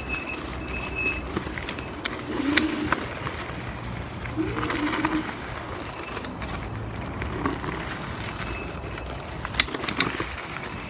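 Dualtron Ultra electric scooter riding over a rough dirt trail: a steady rolling rush with frequent sharp knocks and rattles as the scooter hits bumps.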